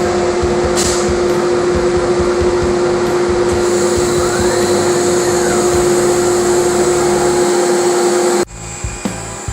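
A CNC router spindle running at a steady high pitch over the rushing of a shop dust collector. It stops abruptly near the end and gives way to lighter scraping and ticking on wood.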